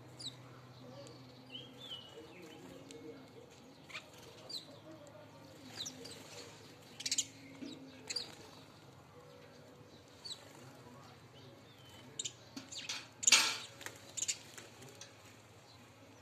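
House sparrows chirping while feeding: scattered short, sharp chirps, a few louder than the rest, the loudest about three-quarters of the way through.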